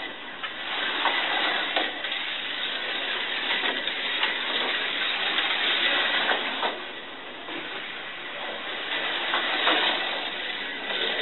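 A modified SCX Compact 1/43-scale Mercedes DTM slot car lapping a plastic track: a steady whirring hiss from its small motor and its guide running in the slot, rising and falling as the car comes near and goes away, with scattered light clicks.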